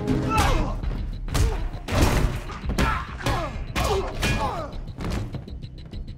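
Film fight sound effects: about ten heavy punches, thuds and shield blows in quick succession, over an orchestral film score.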